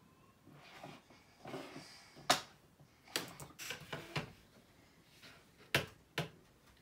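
Small makeup items being handled and set down on a vanity table: a scatter of light clicks and knocks with some rustling, one sharp knock about two seconds in, a quick cluster of clicks after it, and two more knocks near the end.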